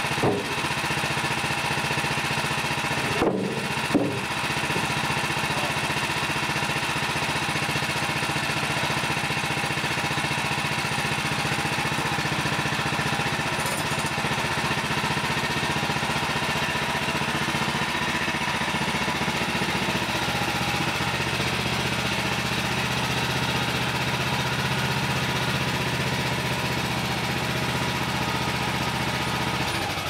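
Woodland Mills HM130 Max portable bandsaw mill running steadily at a constant speed as its blade is pushed through an oak log, cutting a slab. Two short knocks come about three and four seconds in.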